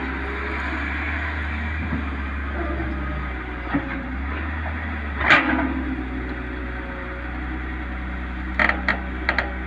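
Tata Hitachi 210 hydraulic excavator's diesel engine running steadily as the boom and bucket work, with one short sharp clank about five seconds in and a quick series of knocks near the end as the bucket goes into the soil.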